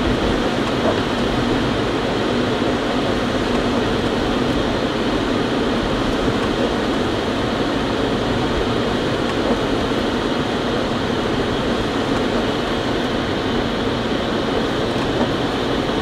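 Steady cabin noise of a car driving on a wet, snowy road: tyre and engine noise heard from inside the car.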